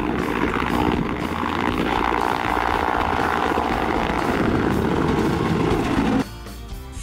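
Helicopter flight noise from a Bell Huey-type crop-spraying helicopter: steady main-rotor beat and engine noise. It cuts off suddenly about six seconds in, giving way to quieter music.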